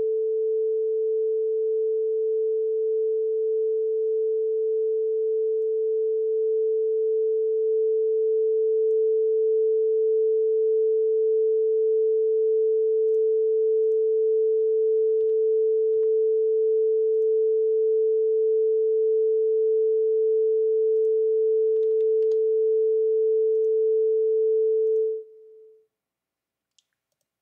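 Steady 440 Hz sine tone from a web tone generator, played through the computer's speakers as a calibration reference tone, here raised toward about 85 dB on the test decibel meter. It gets slightly louder about eight seconds in, drops briefly to a quieter level near the end, then cuts off.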